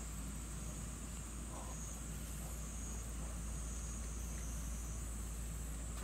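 Steady high-pitched drone of insects calling outdoors, with a low steady rumble underneath.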